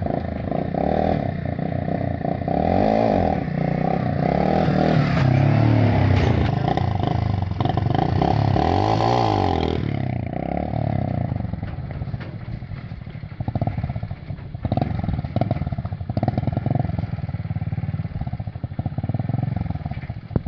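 Small motorcycle engine revving, its pitch rising and falling repeatedly as the rider pulls wheelies. About ten seconds in, the sound changes abruptly to a lower, more uneven engine note as the bike rides on.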